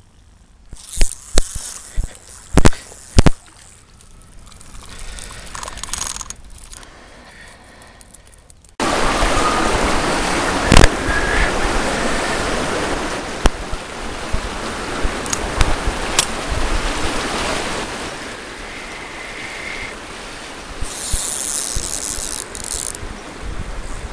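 A few sharp knocks, then, from an abrupt change about nine seconds in, a loud steady rushing of wind on the microphone with scattered sharp clicks.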